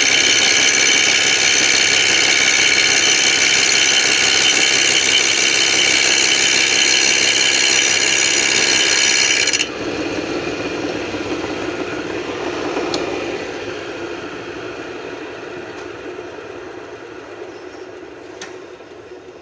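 Lathe running with a homemade four-jaw chuck spinning: a loud, steady mechanical whine. About ten seconds in, the sound changes abruptly and drops, then fades gradually.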